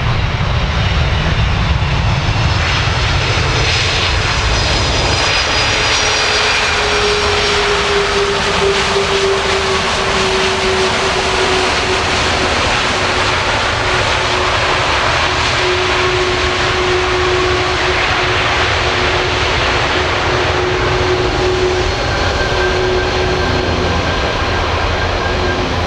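Boeing 767-300 airliner's jet engines running loud and steady during its landing, with a whining tone that dips in pitch a few seconds in and then holds.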